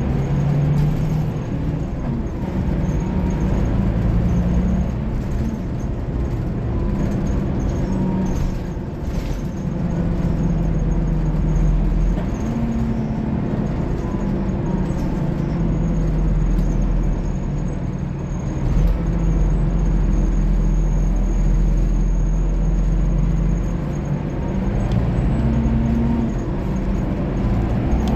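Scania K360IB bus's DC13 inline-six diesel running under way. Its engine note steps up and down several times as the Opticruise automated gearbox shifts.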